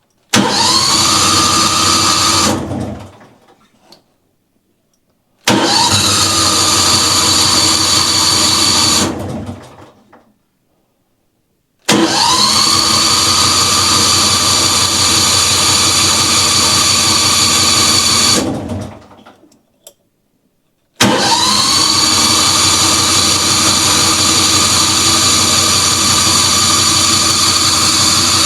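John Deere Gator XUV550's engine cranking on its electric starter four times without catching. Each attempt opens with a rising whine as the starter spins up, and the last runs on past the end. The engine won't start, which the owner puts down to a stuck carburetor solenoid.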